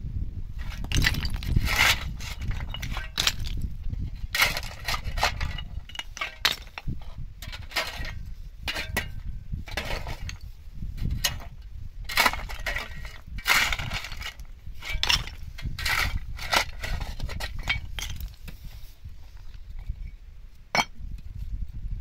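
A metal shovel scraping and digging into loose broken stone and gravel, with rock fragments clinking and clattering against each other and the blade. The strikes come irregularly, in clusters, throughout.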